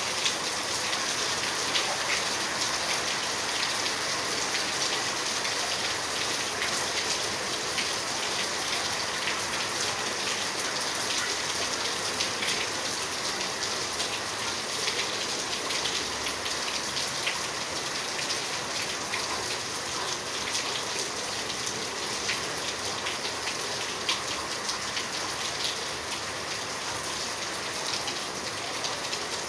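Steady rain falling, a continuous even hiss dotted with many small drop hits.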